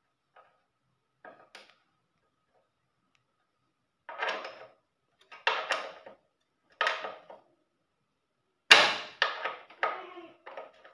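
A run of sharp metallic knocks and clatter, in a few separate groups starting about four seconds in, the loudest knock near nine seconds.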